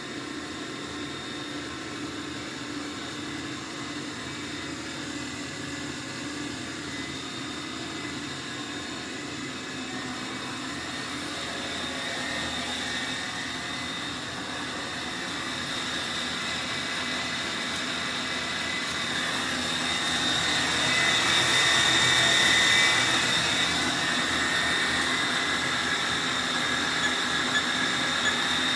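Machinery running steadily, a low hum under a high whine, growing louder around twenty seconds in and easing off a little after.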